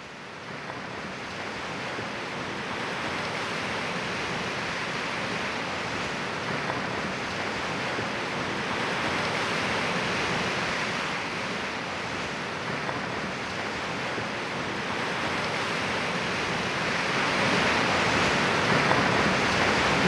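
Lake Superior waves breaking and washing over dark shoreline rocks: a steady rushing surf that fades in at the start and swells a little louder near the end.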